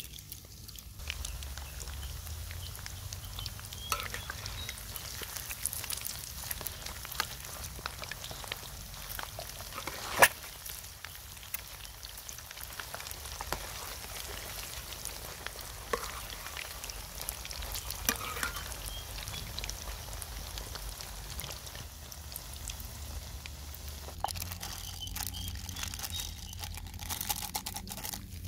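Flour-battered eggs deep-frying in hot oil in a wok: a steady sizzle full of small pops and crackles, with one much louder pop about ten seconds in.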